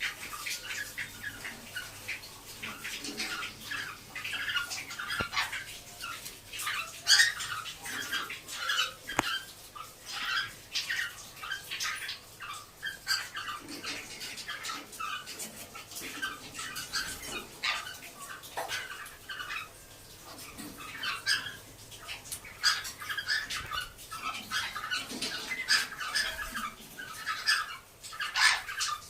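Cockatiels chirping and squawking in many short, irregular calls, with the loudest calls about 7 seconds in.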